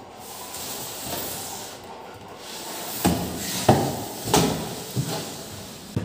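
A small wooden cabinet being shifted across a tiled floor: a scraping rustle, then several sharp wooden knocks and thuds about every half second to second in the second half.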